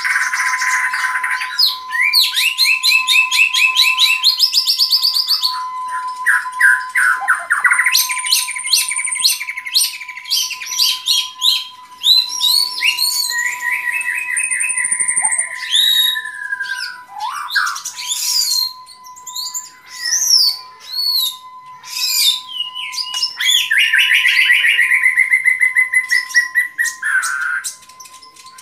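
White-rumped shama (murai batu) singing: a long, varied run of rapid trills, chattering rattles and clear whistles that swoop up and down, broken by short pauses. A steady thin tone sits beneath the song.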